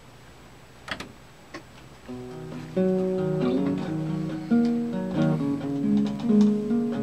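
Acoustic guitar starting a song: after a couple of light clicks, notes begin ringing out about two seconds in. The playing fills out to a steady flow of single notes and chords from about three seconds.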